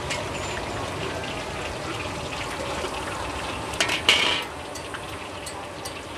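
Oil and minced ingredients sizzling steadily in a large metal wok. About four seconds in, a brief, loud scrape of metal spatulas against the wok.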